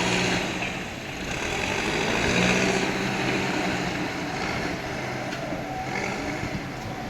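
Diesel engine of a JCB earthmoving machine running steadily under work, getting louder a couple of seconds in and then easing off.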